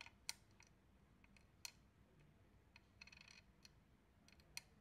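Small steel ball bearings clicking against one another and being set down on a wooden board: a few separate sharp clicks, with a brief rattling clatter about three seconds in.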